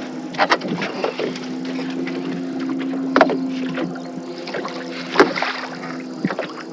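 Steady low hum of a small fishing boat's motor, with scattered sharp knocks and clicks on the boat, the loudest about three and five seconds in. This happens while a hybrid striped bass is fought at the boat.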